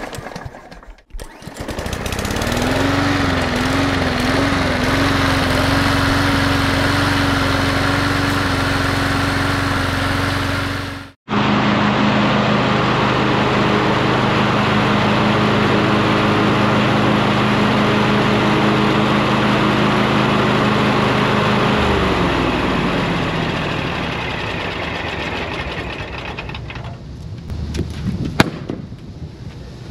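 John Deere X300 riding mower's V-twin engine starting up, with its speed wavering briefly before settling into a steady run. The sound breaks off for a moment about eleven seconds in and the engine resumes at a steady speed. About twenty-two seconds in it is shut off and winds down.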